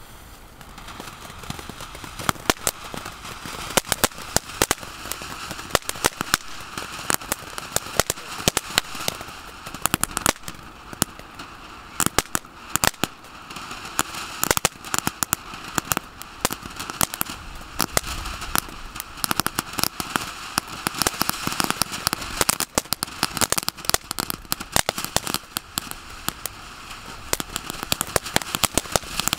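Ground firework fountain burning: a steady hiss of gushing sparks with dense, irregular crackling throughout, picking up about a second in.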